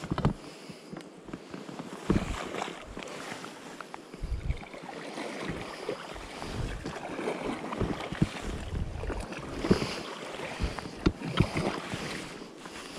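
Pontoon boat being rowed downriver: water slapping and lapping against the pontoons, with irregular splashes and knocks as the oars dip, and wind gusting on the microphone.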